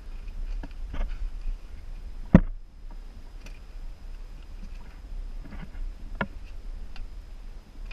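Wind rumbling on the camera's microphone on board a sailing yacht, with a few sharp knocks, the loudest about two and a half seconds in, from the camera pole being handled and gear on deck.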